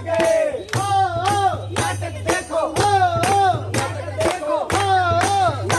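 Voices singing a song together, with hand claps keeping the beat at about two claps a second.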